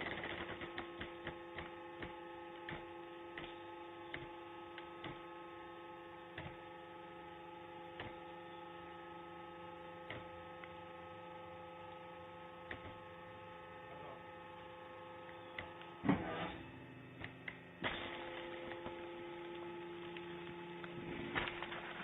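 Vertical hydraulic baler's electric motor and hydraulic pump running with a steady hum, with scattered light clicks and ticks; a short louder clatter comes about 16 seconds in before the hum settles again.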